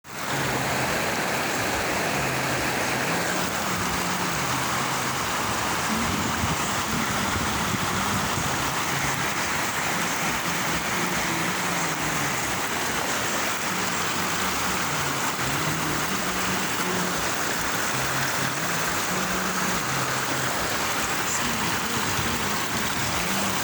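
Steady rush of flowing water, like a stream or small waterfall, with faint low humming tones that shift in pitch underneath.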